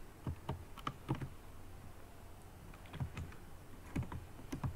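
Computer keyboard keystrokes typing in two short bursts, with a pause of about a second and a half between them.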